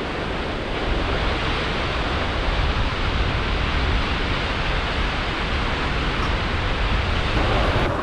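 Steady rushing noise of wind buffeting the microphone, with uneven low rumbling.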